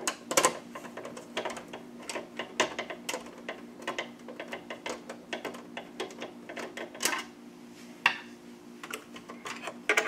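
Rapid, irregular small metallic clicks and taps from hands working at a PC case's expansion-slot bracket while a slot cover is freed. There are a few sharper clicks, one at about seven seconds and another a second later, over a faint steady hum.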